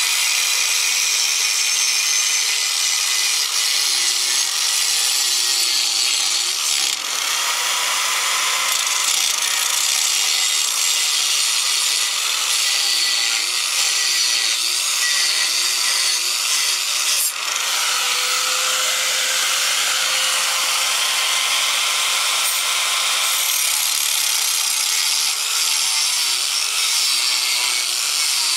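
Corded angle grinder with a thin cut-off wheel cutting sheet metal: a steady, loud grinding hiss, with the motor's pitch wavering as the wheel bites. The cut eases off briefly twice, about 7 and 17 seconds in.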